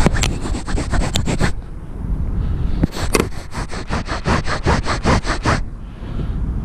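Handling noise on an action camera's microphone: irregular rubbing, scraping and knocking in two runs, over a low rumble.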